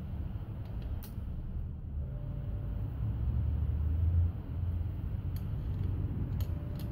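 A few short, sharp clicks from a ratchet wrench and torque-angle gauge as engine bolts are tightened by angle, over a steady low rumble.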